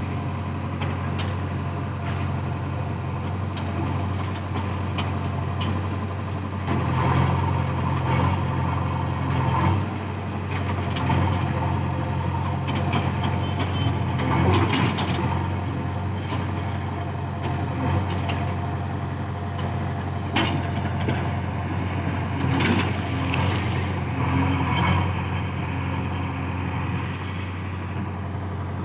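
Heavy diesel engine running steadily, swelling louder several times as it works under load, with scattered knocks and clatter.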